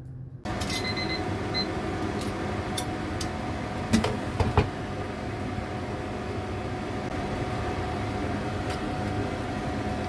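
Steady whir of a kitchen appliance fan, starting abruptly about half a second in. A couple of short high tones come soon after, and a few sharp clicks and knocks around four seconds in, from utensils on the metal basket.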